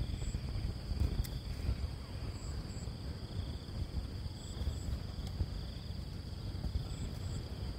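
Insects chirping with steady high-pitched trills, some pulsing on and off, over a constant low rumble.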